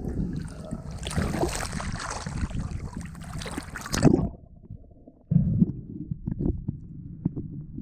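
Water splashing and sloshing at the surface as a spearfisherman swims. About four seconds in, the sound suddenly turns muffled and dull, heard from under water, with scattered low knocks.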